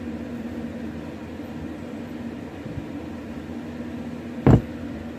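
Electric fan running with a steady hum, and one loud thump about four and a half seconds in as the trailer tire is handled right at the microphone.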